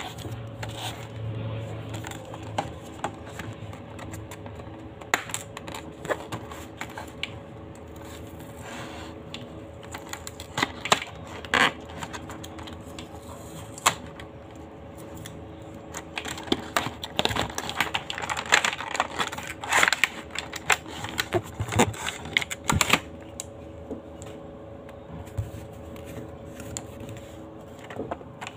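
Cardboard box and plastic blister packaging being handled and opened by hand: irregular clicks, taps and crinkles, busiest about two-thirds of the way through, over a steady faint hum.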